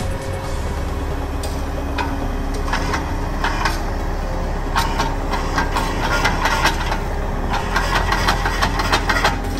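An engine running steadily, with bursts of clattering and rattling knocks that come thicker in the second half.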